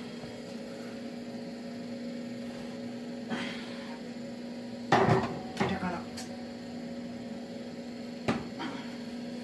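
Steady electrical hum from an open electric oven with its bake element glowing red, with a few sharp knocks and clatters about five to six seconds in, the loudest being the first, and another knock near the end.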